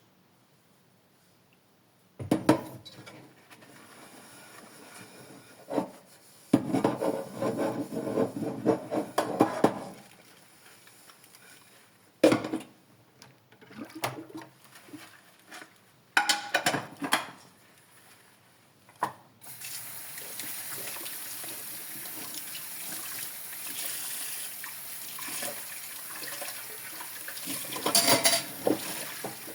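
Dishes being washed in a sink: irregular clinks and splashes of water, then a tap runs steadily from about two-thirds of the way in, with more clatter near the end.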